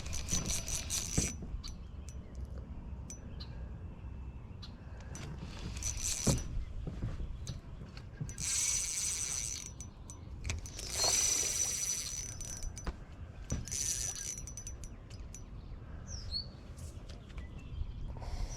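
Spinning reel on light line during a fish fight, working in about five short bursts of fine rapid clicking with a high whine, over a low wind rumble.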